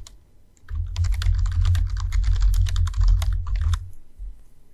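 Typing on a computer keyboard: a fast run of keystrokes, with a dull thud under each one, starting about a second in and stopping just before the end.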